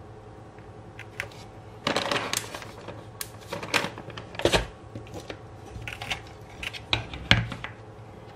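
Irregular clicks, taps and short rustles of things being handled on a work table, the small plastic pot of soil-topped cactus among them; the sounds begin about two seconds in and come every half second or so, unevenly.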